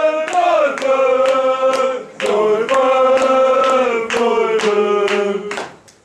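Choir singing a chant in long held notes over a steady beat of percussive strikes, in phrases of about two seconds, and fading out just before the end.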